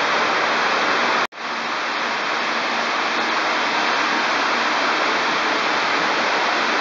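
Steady rushing of water pouring down a tall indoor waterfall, the Dubai Mall Waterfall. The sound drops out for an instant about a second in, then carries on.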